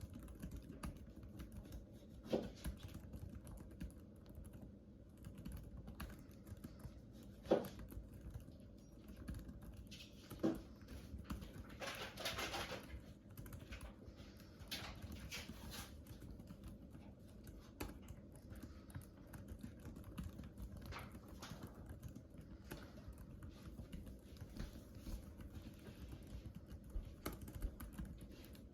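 Steady typing on a computer keyboard, with a few heavier key thumps and a brief noisy sound lasting about a second near the middle.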